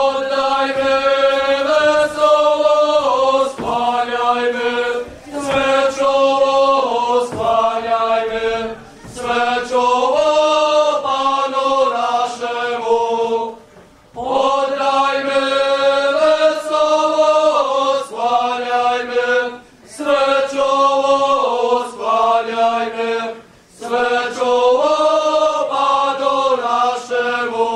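A group of voices singing a Christmas carol (kolęda) together on one melody line, in slow held phrases of a few seconds each with short breaks between them.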